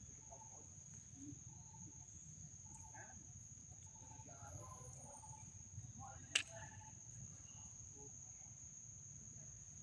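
A steady, high-pitched insect drone outdoors, with one sharp click about six seconds in.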